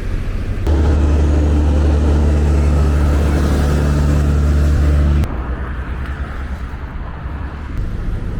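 A motor vehicle or machine engine running at a steady speed close by, coming in suddenly about a second in and cutting off about five seconds in. Lower road traffic noise continues around it.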